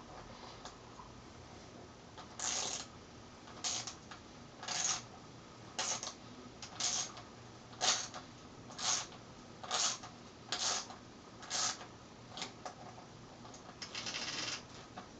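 Quarter-inch-drive socket ratchet clicking in short bursts about once a second, each burst one backstroke while a 13 mm hex-head axle bolt on a bicycle's rear wheel is tightened, with a longer run of clicks near the end.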